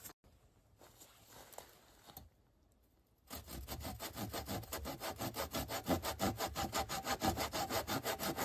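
Hand saw cutting through wood in even back-and-forth strokes, about three a second, starting a little after three seconds in following a quiet stretch.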